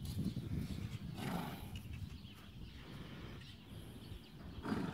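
Horse blowing and snuffling through its nostrils as it noses the dirt, a few breathy puffs over a low rumble, one about a second and a half in and a stronger one just before the end.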